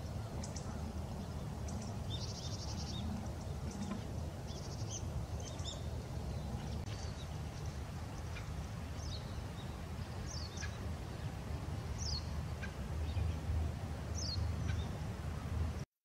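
Outdoor ambience with a steady low rumble, over which small birds call: brief high chattering around two and five seconds in, then single short, high, falling notes every second or two from about nine seconds on. The sound cuts off abruptly just before the end.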